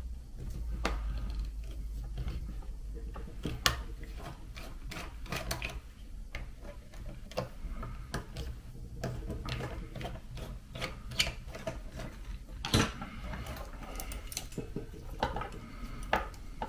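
Small screwdriver working the combination Phillips/flathead screws out of a WADEO 3700W camping gas stove: irregular light metal clicks and scrapes, with the stove's metal parts rattling as they are handled.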